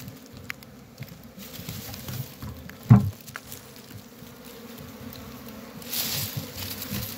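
Honeybees buzzing steadily around an exposed wild colony's combs, with a sharp thump about three seconds in and a brief rustle near the end.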